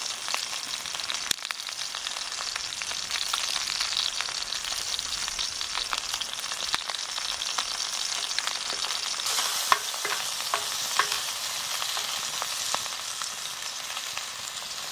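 Yellowtail fillet frying in oil in a black iron skillet over a wood fire: a steady sizzling hiss, with scattered sharp pops that cluster about ten seconds in.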